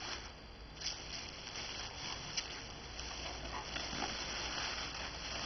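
Tissue paper, bubble wrap and a clear plastic bag rustling and crinkling as hands unwrap a doll from its packaging, with scattered sharper crackles, one standing out about two and a half seconds in.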